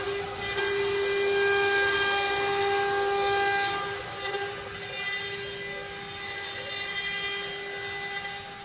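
CNC router spindle running with a steady high whine while its bit carves a wooden board, with a rasping cutting noise under it. It is loudest for the first few seconds, then eases to a quieter whine about four seconds in.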